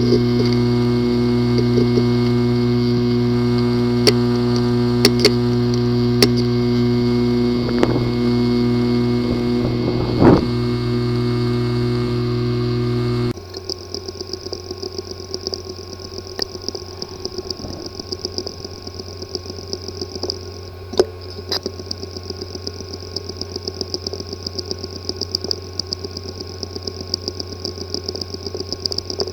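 Hard drive with physical damage in its disk assembly running, first with a steady hum and a few sharp clicks. About 13 seconds in, the sound changes suddenly to a quieter whine with rapid, irregular ticking.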